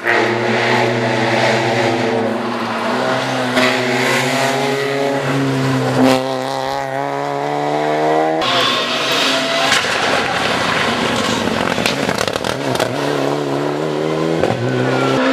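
Rally car engines on a special stage: a car's engine at hard throttle climbs steadily in pitch and cuts off sharply about eight seconds in as the driver lifts or shifts. A rougher stretch follows, and a strong engine note comes back near the end.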